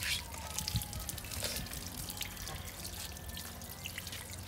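Water from an outdoor tap running and splashing onto a wet dog's coat and the concrete below, with scattered drips and splashes as hands scrub the dog.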